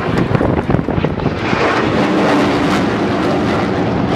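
Jet noise from a McDonnell Douglas CF-18 Hornet's twin turbofan engines as it flies past, a steady loud roar.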